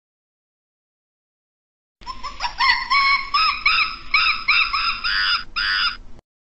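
A monkey crying: after two seconds of silence, a quick run of short, high-pitched, arching cries, one after another for about four seconds, that cuts off abruptly near the end.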